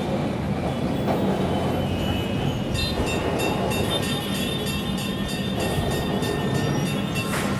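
Tram running along its rails, a steady running noise heard from inside the car.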